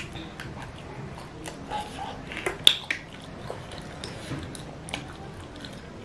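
Close-up chewing and mouth sounds of someone eating a sauced, chewy bite, with small wet smacks and clicks and one sharp click about two and a half seconds in.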